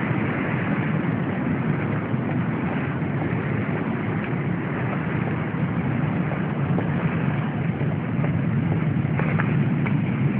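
Steady rushing noise of heavy surf on a rough sea mixed with wind, with a few faint clicks near the end.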